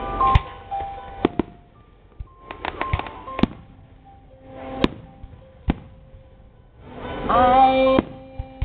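Aerial fireworks shells bursting: sharp bangs a second or so apart, with a quick cluster of several bangs about three seconds in. Steady music-like tones run underneath and swell loudest just before the end.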